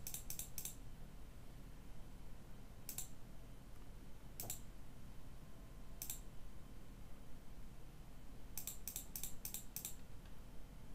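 Faint computer mouse clicks and keyboard key presses: a quick run of clicks at the start, single clicks about three, four and a half and six seconds in, and another quick run of about six near the end, over a faint low hum.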